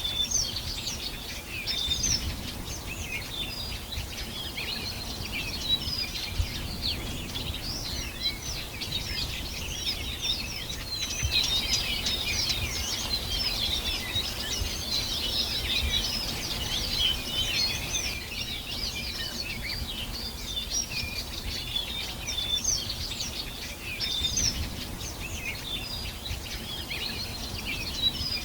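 A dense chorus of many songbirds chirping and trilling at once, busiest in the middle, over a low, steady background rumble.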